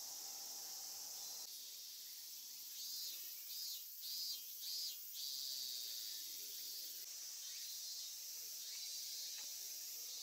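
Steady high-pitched chorus of insects, with a run of louder pulsing calls, about two a second, for a couple of seconds in the middle.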